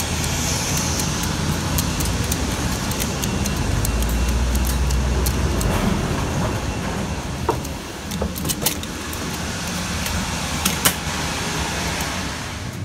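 Bus running, heard from on board: a steady engine and road rumble that is heaviest about halfway through. Scattered sharp clicks and knocks run through it, with a brief falling whine a little past the middle.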